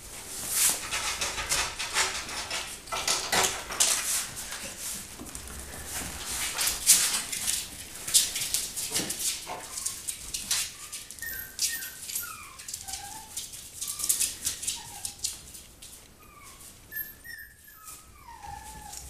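West Highland white terrier puppies, five weeks old, scampering on a hardwood floor, their paws and claws making a quick run of clicks and scrabbles. From about halfway on come many short, high whimpers and squeaks from the puppies.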